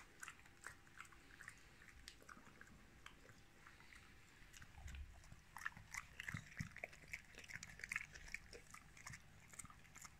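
Staffordshire bull terrier chewing and gnawing, with faint, irregular crunches and clicks of teeth that come thicker and louder in the second half.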